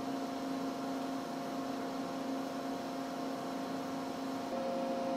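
Steady electrical hum with a faint hiss from the bench equipment, shifting slightly in pitch about four and a half seconds in; no Geiger clicks are heard.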